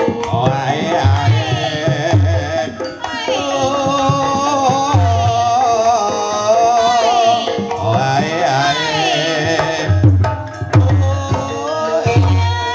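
Live ebeg gamelan music with hand-drum strokes repeating in a steady rhythm under a singer's sliding, ornamented melody and a held ringing tone.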